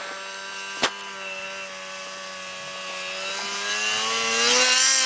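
Snowmobile engine approaching while towing a rider on a sled, growing steadily louder, its pitch rising near the end as it speeds up. A single sharp click about a second in.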